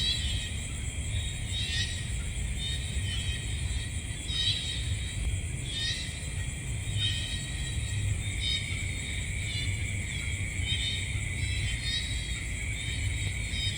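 Night ambience of calling insects: a steady high-pitched drone with short chirping calls repeating about every second and a half, over a low steady rumble.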